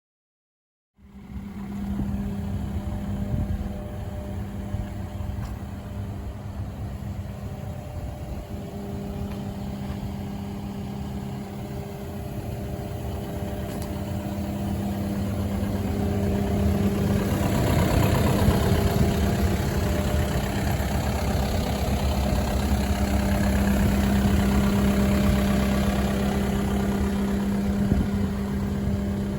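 Kubota KX080-4 8-tonne excavator's diesel engine running steadily, starting about a second in. It grows louder about halfway through and stays louder after.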